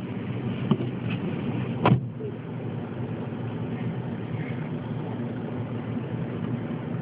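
Steady rumble inside a car with the engine idling. A few sharp knocks come in the first two seconds, the loudest about two seconds in.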